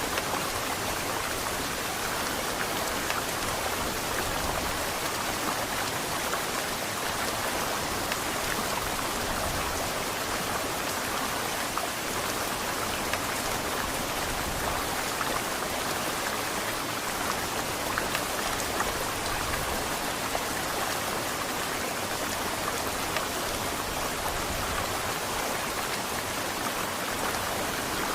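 Heavy rain falling steadily, a dense, even patter of drops with no let-up.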